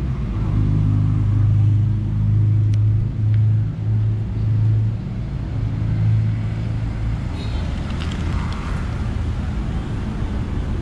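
A motor vehicle engine running with a low, steady hum that fades after about six seconds, over general street traffic noise.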